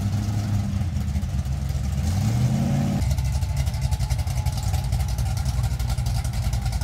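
Engine of a lifted pickup truck on oversized off-road tyres driving slowly past, a deep low rumble. It rises briefly about two seconds in, then settles into a steady rumble.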